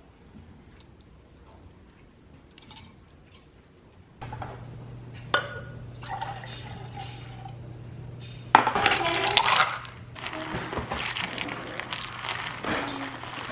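Liquid pouring into a glass, with clinks of glass and dishes. A steady low hum starts about four seconds in, and the loudest rush of pouring comes a little past the middle.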